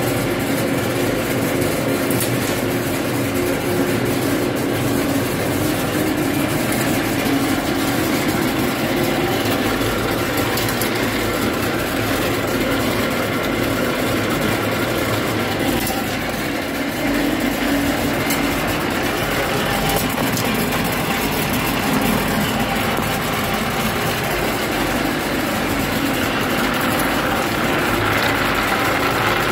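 Peanut colour sorter running: a loud, steady machine noise with a constant fine crackle of small clicks. The hiss grows a little stronger near the end.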